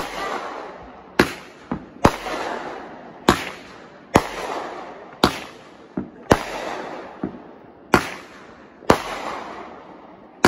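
Consumer aerial fireworks going off in quick succession: about ten sharp bangs, roughly one a second, each followed by a hiss that fades before the next.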